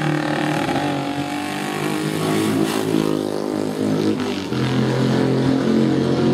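Classic racing motorcycles' engines running hard as the bikes pass along the road circuit, several at once; the engine note falls away midway, and another bike's engine comes in louder about four and a half seconds in.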